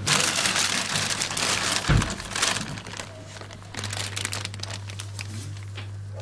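Plastic bag rustling and crinkling as it is handled and held open, loudest in the first three seconds, with a thump about two seconds in, over a steady low hum.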